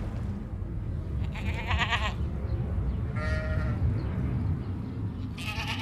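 Bleating livestock: three short bleats about two seconds apart, the first one quavering, over a steady low rumble.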